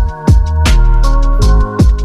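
Background music: an electronic track with a steady drum beat, bass and sustained synth notes.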